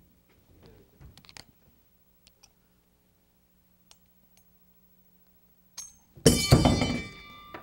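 Faint metallic clicks of an Allen wrench working a Schulmerich handbell's handle screw. About six seconds in, the freed bronze bell casting falls and hits hard: a loud clang that rings on with several bell tones, slowly fading.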